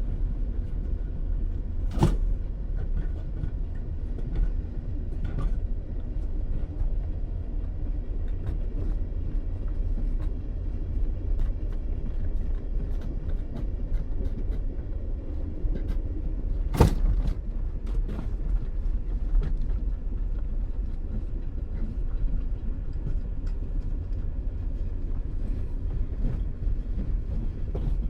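Steady low rumble inside a moving commuter train's carriage, with light rattles and clicks throughout and two sharp knocks, about two seconds in and again a little past halfway.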